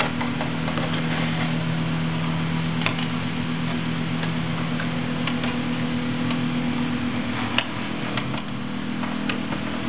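A steady low mechanical hum, with a few light clicks and knocks from the plastic dashboard bezel being turned and handled; the sharpest click comes about three-quarters of the way through.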